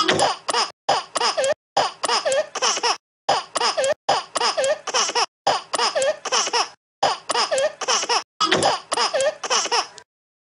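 A baby laughing in a long run of giggles, a few short laughs at a time with brief breaks between. It stops about ten seconds in.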